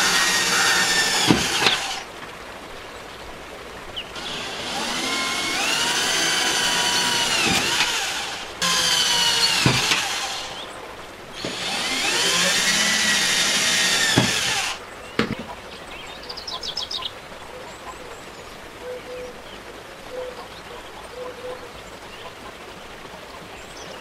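Cordless drill boring small holes through a thin copper tube: four runs of a few seconds each, the motor's whine rising and falling in pitch with the trigger. After about fifteen seconds it stops, leaving only faint ticks.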